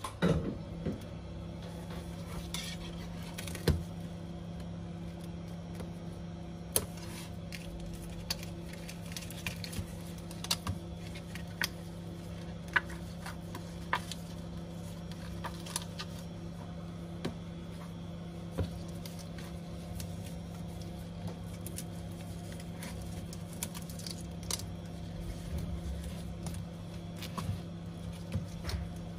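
Scattered light clicks and taps of tools, film and broken glass being handled on a workbench while a cracked iPad screen is lifted off, over a steady low hum. A heat gun's blowing cuts off at the very start.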